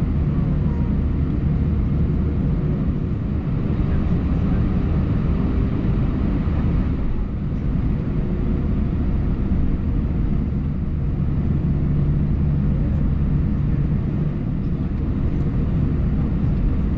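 Steady low hum of an Airbus A319 heard from inside the passenger cabin on the ground, the engines and air system running evenly with no change in pitch.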